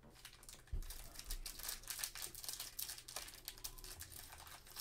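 Foil wrapper of a Panini Mosaic NBA trading card pack crinkling and rustling as it is handled and pulled at to open it, with a dull thump about three-quarters of a second in.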